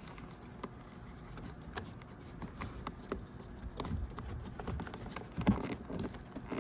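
Light clicks, taps and rustles of plastic parts being handled while electrical connectors are plugged into the door switches, with a sharper knock about five and a half seconds in.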